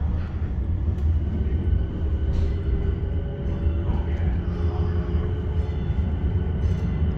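Steady low rumble of an MBTA Green Line light-rail car running along the track, heard from inside the passenger cabin, with a faint steady hum over it.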